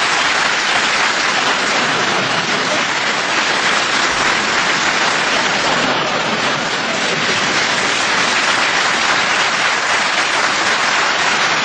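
Audience applauding steadily, a dense, even clapping with no voice over it.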